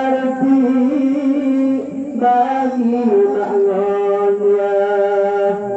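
Voice singing an Acehnese qasidah in long, held notes. The melody shifts at about two seconds and again at three seconds in, then holds one note until near the end.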